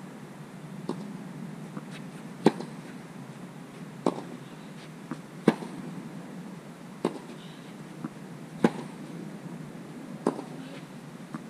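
Tennis balls struck by racquets in a steady rally, one hit about every second and a half. The hits alternate between loud, close strokes and fainter ones from across the court, with softer knocks in between.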